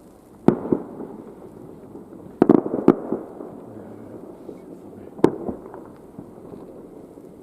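Aerial fireworks shells bursting: one bang about half a second in, a quick run of three around two and a half seconds, and another after five seconds, each followed by a rolling echo.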